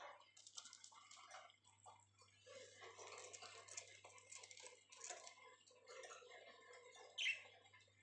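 Budgerigar chattering and chirping faintly, with one short, louder chirp falling in pitch about seven seconds in.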